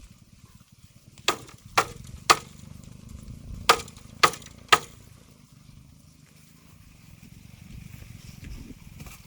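Six sharp knocks or chopping strikes in two runs of three, about two a second, over a low rumble.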